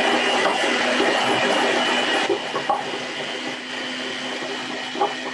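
Electric hand mixer running steadily with a high whine, its beaters whipping coconut cream in a glass bowl. The beaters knock sharply against the bowl a couple of times.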